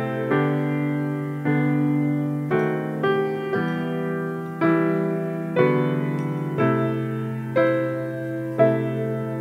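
Slow, gentle instrumental piano music: a chord struck about once a second, each one fading before the next.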